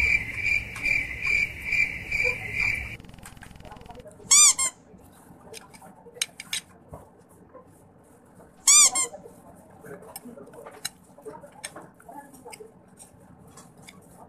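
A high insect-like chirping pulses about two or three times a second and stops about three seconds in. After that come light clicks of a spoon and fork on a plate while eating, and two loud, short, high squeaks about four and nine seconds in.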